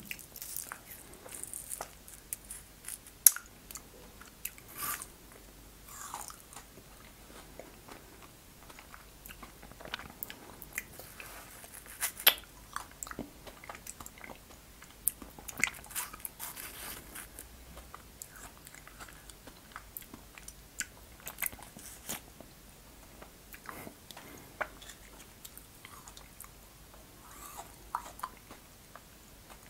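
Frozen fruit ice being bitten and chewed: irregular crisp crunches and crackles of ice between the teeth, with a few sharper, louder bites.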